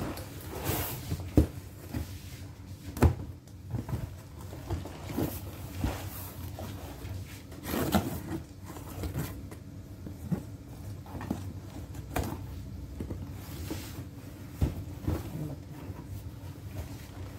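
Cardboard shipping box being handled and opened with a knife: irregular knocks and thumps on the box, with short stretches of scraping and rustling cardboard.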